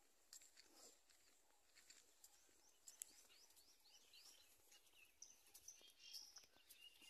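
Faint birdsong over a quiet rural background: a run of quick, falling chirps through the middle, then a few higher whistled notes.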